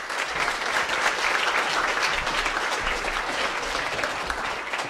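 Audience applauding, many hands clapping at once, easing off slightly near the end.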